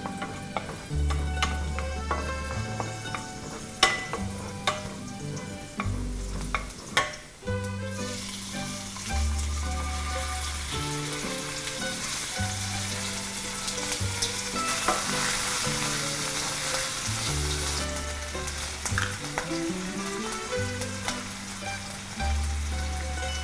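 Minced garlic sizzling in oil in a nonstick frying pan, with a wooden spatula scraping and tapping the pan a few times. About eight seconds in the sizzle gets much louder as sliced beef goes in and is stir-fried. Background music with a bass line plays throughout.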